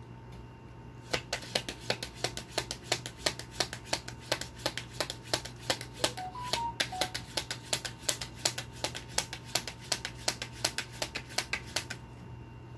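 Tarot deck being shuffled by hand: a quick run of card slaps, about four to five a second, starting about a second in and stopping near the end.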